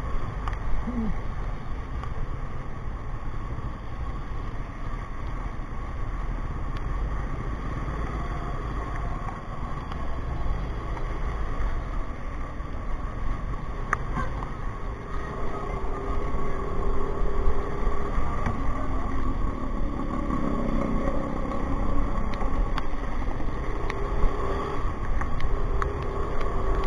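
Motorcycle engine running steadily while riding in city traffic, with wind and road noise on the microphone. From about halfway through, a steadier engine drone joins in.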